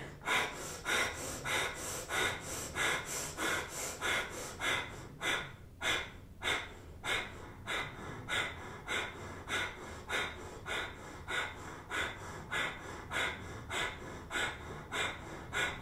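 A woman doing breath of fire: rapid, even, forceful breaths in and out through the nose, about three a second, driven by pumping the navel toward the spine.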